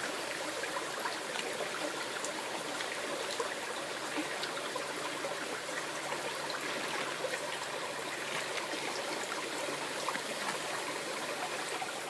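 Running water: a steady, even rush with no break.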